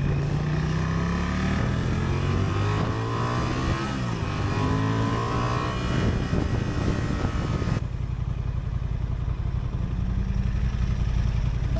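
Honda Transalp 750 parallel-twin motorcycle engine accelerating hard, its pitch climbing and stepping through the gears with rising wind rush. About eight seconds in the sound changes abruptly to the engine running at low speed with a steady low rumble and little wind.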